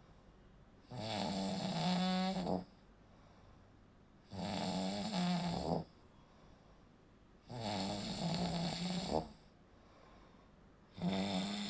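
Snoring: a buzzing snore about every three seconds, each lasting about a second and a half, with quiet pauses between. It is the sound of the throat's soft tissues vibrating as airflow is partly blocked during sleep.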